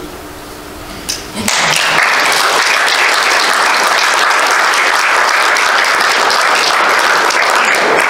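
Audience applauding, starting suddenly about a second and a half in and carrying on steadily.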